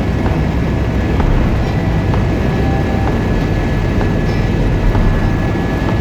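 Helicopter in flight: steady, loud engine and rotor noise with a thin steady whine above it.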